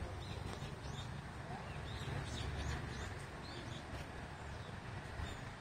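Small birds chirping, many short high chirps in quick succession, over a steady low rumble.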